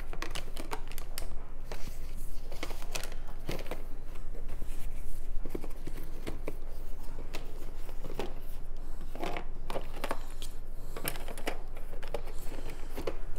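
Paper, card and plastic packaging being handled: scattered rustles, crinkles and light clicks, irregular throughout.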